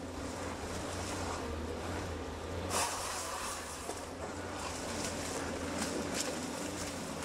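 Komatsu PC 200F harvester's diesel engine and hydraulics running steadily as the Komatsu 378E processing head feeds and delimbs a eucalyptus stem. Sharp cracks of branches snapping off come about three seconds in and again near six seconds.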